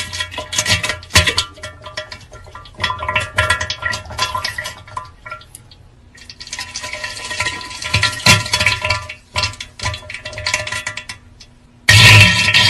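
A run of edited sound-effect clips: music with many short clicks and knocks, then a noisy, watery-sounding stretch in the second half. A sudden loud crash comes near the end.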